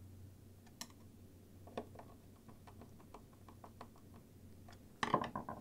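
Faint scattered clicks and taps of wire leads and metal alligator clips being handled on a wooden board, with a short cluster of louder clicks near the end.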